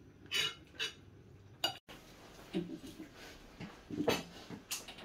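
Cutlery clinking against plates at a meal: a few separate light clinks spread through the quiet, with brief faint voice sounds in between.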